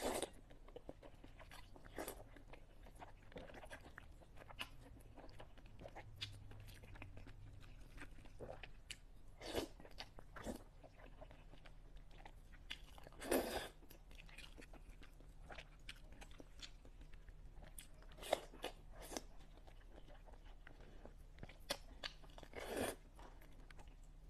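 Close-miked eating of saucy noodles: soft wet chewing and mouth clicks, broken by a few louder slurps of long strands, the loudest about thirteen seconds in.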